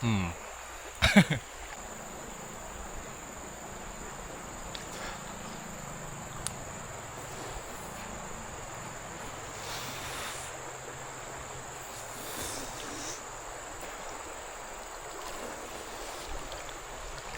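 River water flowing steadily, with a thin, steady high-pitched insect drone over it. A short, loud sound comes about a second in.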